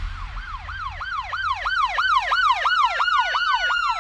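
Police-style siren in a music intro, a fast yelp sweeping up and down about three times a second. About halfway through, a second, slower siren tone glides up and then down over it, above a low bass rumble.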